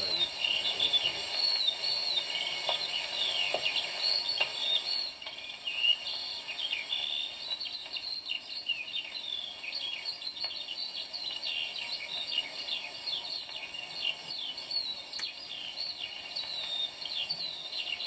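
Old 1937 field recording of many birds chirping in a dense, continuous chorus of short twittering calls, played back through loudspeakers.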